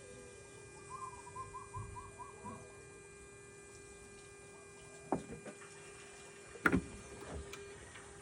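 Mitsubishi Mirage G4 trying to start: a few sharp clicks from under the hood, the loudest about 6.7 s in, and the engine does not crank or catch, over a steady electrical hum. Clicking with a new, charged battery, which the owners put down to the alternator or the starter.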